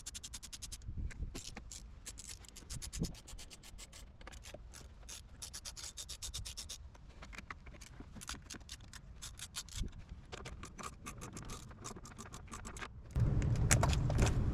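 Socket ratchet clicking in long, quick runs of even clicks as a bolt is turned. Near the end a loud low rumble comes in suddenly.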